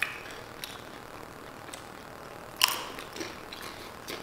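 Tortilla chips being broken and bitten: a few short, sharp crunches, the loudest about two and a half seconds in.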